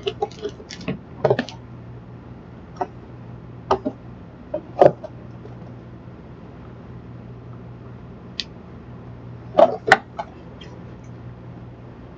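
Scattered short clicks and light knocks, a dozen or so at uneven intervals with the sharpest near the middle and again a little after, typical of small objects and candy packaging being handled on a table. A steady low hum sits underneath.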